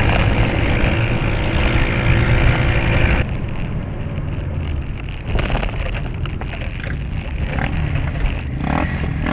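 Car engine and road noise, a steady low rumble; the sound changes abruptly about three seconds in.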